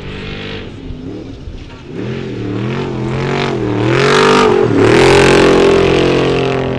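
Trophy truck race engine revving up and down hard as it charges over rough desert track, then held at high revs as it passes close. It is loudest about four to five seconds in.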